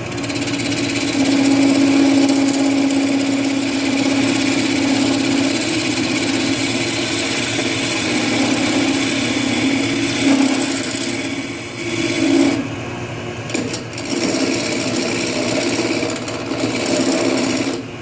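Wood lathe running while a hand-held turning tool cuts detail grooves into the spinning wooden blank: a steady scraping hiss over the motor's hum, breaking off briefly a few times near the end as the tool is lifted from the wood.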